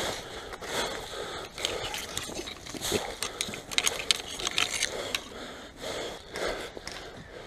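Irregular mechanical clicks and scraping, like gear being handled or moved.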